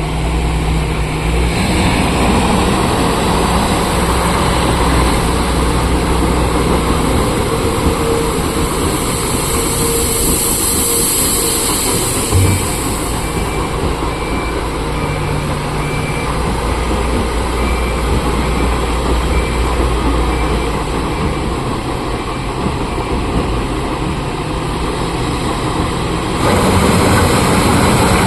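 Heavy diesel machinery running steadily, with one short thump about halfway through and the engine growing louder near the end.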